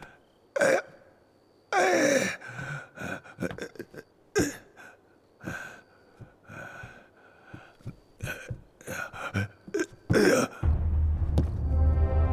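A man's laboured, distressed gasps, groans and heavy breaths, short and broken by pauses. About ten seconds in, dramatic orchestral music comes in over a deep low drone.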